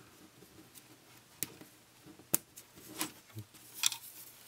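Small plastic parts of an HO scale boxcar kit clicking and tapping as a Kadee coupler and its spring are handled and fitted into the coupler box: four light, sharp clicks spread out, the last near the end the loudest.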